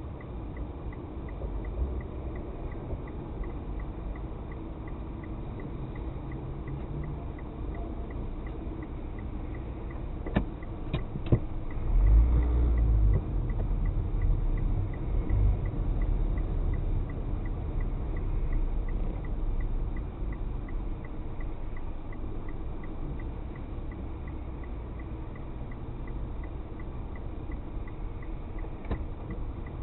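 Car driving in town, heard from inside the vehicle: a steady low rumble of engine and road noise with a faint regular ticking a little over twice a second. A few sharp knocks come about ten to eleven seconds in, followed by a louder low rumble for a second or two.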